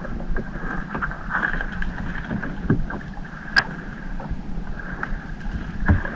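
Small fishing boat's engine running steadily, with a few sharp knocks about three and a half and six seconds in.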